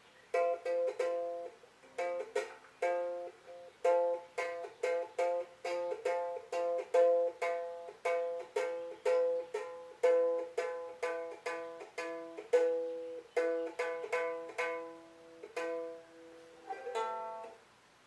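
Ukulele strummed in chords at about two strokes a second, with a short break about a second and a half in and stopping near the end.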